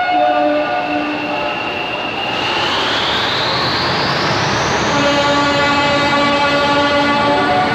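English Electric Class 40 diesel locomotive thrashing away under power, its 16-cylinder engine working hard. From about two seconds in, the turbocharger whistle climbs steeply in pitch and then stays high, with the engine's steady note coming back strongly about five seconds in.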